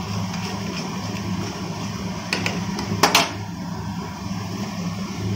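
Yogurt-thickened fish curry boiling in a black iron kadai over a steady low hum. A metal spoon clinks against the pan a few times, loudest twice about three seconds in.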